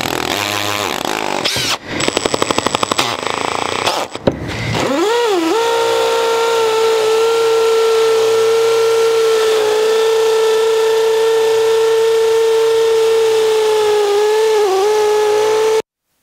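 Makita XPH07 18 V cordless hammer drill at speed setting 2, first hammering with a fast rattle of impacts. After a brief pause its motor spins up to a steady high whine, held about ten seconds with a slight dip near the end, then cuts off abruptly.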